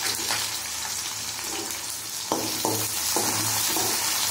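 Sliced onions sizzling in hot oil in a kadai, with a few stirring strokes of a spoon against the pan in the second half.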